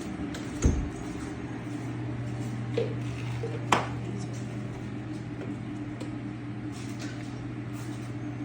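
Light knocks and clinks from a chicken waterer being handled: a thump about half a second in, then two sharper clicks around three and four seconds in. A steady low hum runs under them.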